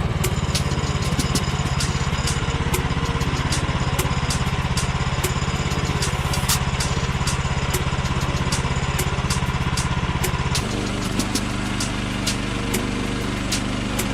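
Portable bandsaw sawmill's small gasoline engine running steadily, with scattered sharp ticks. About three-quarters of the way through the engine note changes and drops slightly in level.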